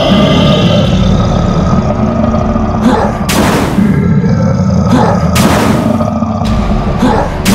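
Edited-in monster roar sound effects for a giant creature, over background music, with three sudden rushing noise bursts spaced about two seconds apart.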